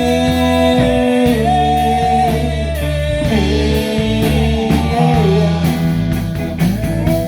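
Rock band playing, with guitar, bass and drums, in a passage between sung lines.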